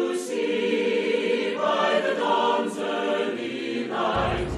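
Background music of a choir singing held chords that change every second or so. A low rumble starts near the end.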